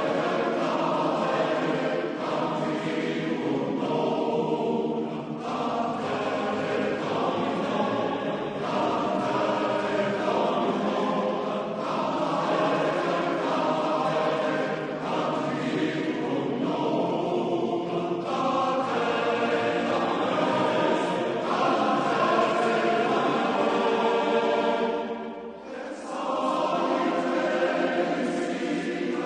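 Men's chorus singing a sustained choral piece, with a short break between phrases near the end.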